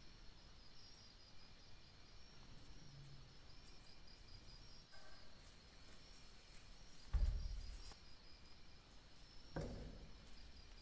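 A hand-lever metal bench press being worked on a dagger blade, giving two dull thumps about two and a half seconds apart, the first louder. Underneath is a faint, steady high chirping.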